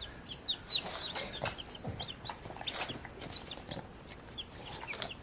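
Baby chicks peeping: a scatter of short, high calls that slide downward in pitch, several at a time, with a few faint scuffs among them.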